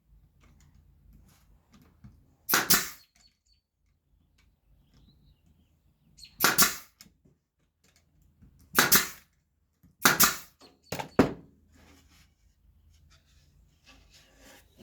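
Brad nailer firing six times, each shot a sharp pop, irregularly spaced with the last three close together, as brad nails are driven into the wood.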